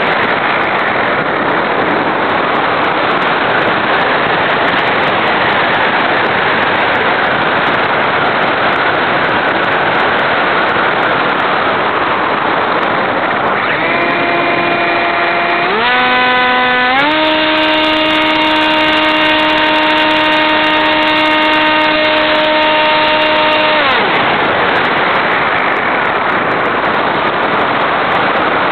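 Steady wind rushing over an onboard camera on an RC airplane in flight. About halfway through, the plane's motor comes on with a whine that changes pitch in steps, holds steady for several seconds, then cuts off.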